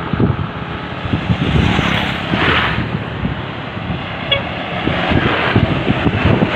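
Roadside traffic noise: a motor vehicle running past, with heavy low rumble and no sustained horn blast.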